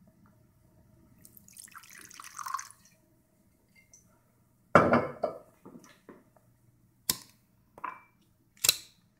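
High-proof vodka poured from its bottle into a glass tumbler for about a second and a half. Then a hard knock of glass set down on the table, the loudest sound, and three short sharp clicks near the end.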